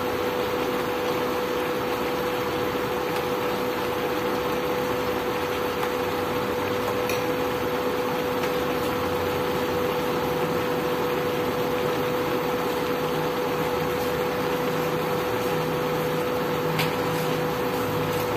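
Induction cooktop running with a steady hum and fan noise while the chicken curry in coconut milk simmers in the pan.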